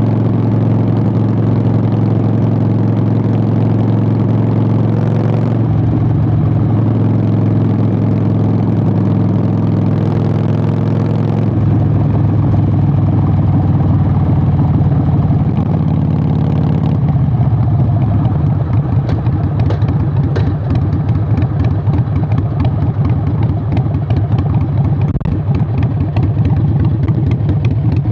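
Harley-Davidson Sportster 883 air-cooled V-twin running through Vance & Hines Short Shots exhaust. It runs steadily, and its note changes in steps at about five, eleven and seventeen seconds. After that it becomes uneven and choppy.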